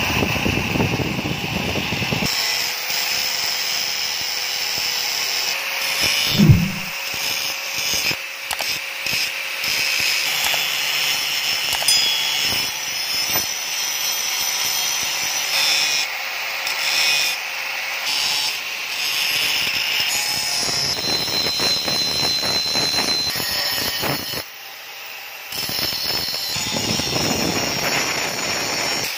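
Electric angle grinder with an abrasive cutting disc cutting a steel knife blank: a steady motor whine under the harsh hiss of the disc biting the metal. A single loud thump comes about six seconds in, and the cutting noise drops for about a second some three-quarters of the way through.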